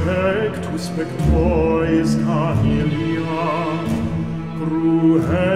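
Music with an operatic male voice singing with vibrato over sustained low notes, with a few sharp percussive ticks.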